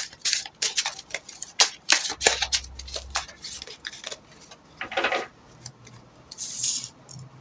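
Tarot cards being handled, giving a run of irregular sharp clicks and taps with a couple of short swishes as cards slide against each other.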